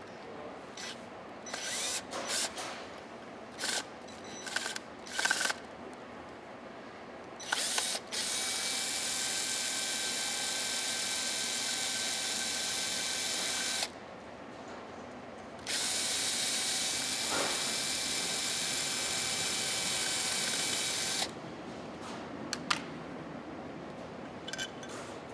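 Cordless drill/driver running in two long, steady spells of about six seconds each, backing out the screws of the box's gasketed cover, after a handful of short clicks and clatters from handling the tool and box.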